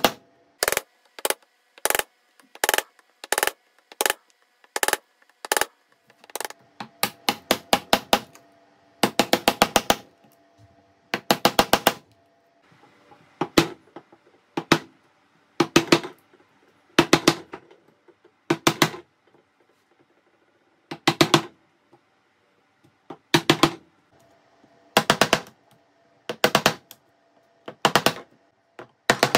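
A mallet striking wood again and again in hand-tool joinery work. It starts with single sharp knocks about two a second, then several quick runs of rapid taps, then single knocks about a second apart. A faint steady hum sits underneath.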